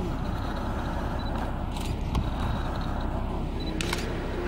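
Handheld video camera's handling noise: a steady hiss with a low rumble and a few faint clicks.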